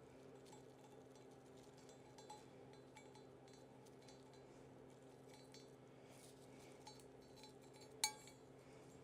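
Quiet handling of small parts on a 4L80E transmission valve body: a few faint ticks and one sharp clink about eight seconds in, over a steady low hum.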